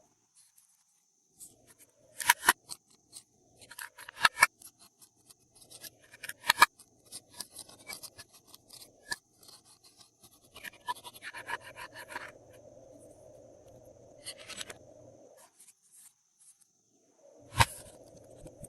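Glossy slime being squished and stretched by hand, giving irregular sticky clicks and crackles, with a few louder snaps.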